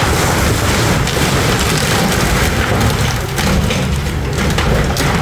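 Excavator demolishing a thatched timber pavilion: dense crackling and crunching of breaking wood and thatch over the low, steady running of the machine's engine.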